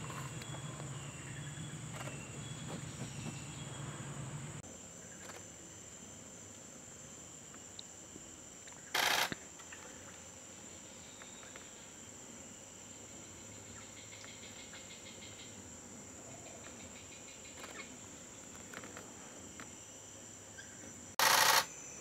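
Insects buzzing steadily at a high pitch in the background, with a low hum that stops about four seconds in. Twice, about nine seconds in and again near the end, a brief, loud burst of noise cuts across them.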